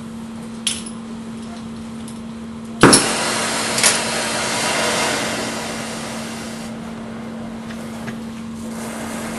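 A brazing torch being lit: a sharp click under a second in, then the flame catches with a loud pop just under three seconds in and settles into a steady rushing hiss, a hot flame.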